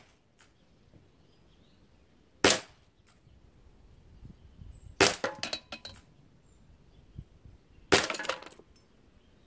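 Three shots from a Smith & Wesson 586 CO2 air revolver, about two and a half to three seconds apart, striking ceramic garden gnomes. After the second and third shots, ceramic shards clink and clatter for about half a second.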